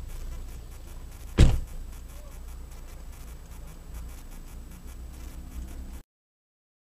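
Steady low rumble inside a car, with one sharp thump about a second and a half in. The sound cuts off abruptly near the end.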